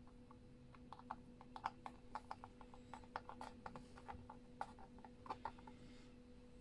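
Faint, irregular crackling and clicking of a thin clear plastic mould sheet being bent and flexed to release an air-dry clay casting.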